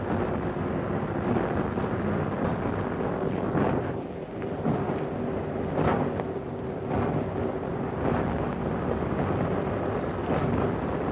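Diesel multiple unit railcar running along the track, heard from the driver's cab: a steady rumble of the underfloor engines and wheels on rail, with a faint held hum and a few brief clatters.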